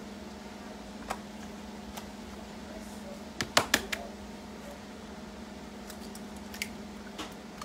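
Eggs being cracked by hand into a plastic bowl: a few sharp clicks and taps of eggshell, the loudest a quick cluster about halfway through, over a steady low hum.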